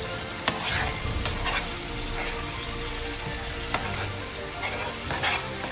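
Stingray curry sizzling in an electric frying pan as chunks of raw stingray meat are dropped in by hand, with several short splashes and two sharp knocks, about half a second in and near four seconds in.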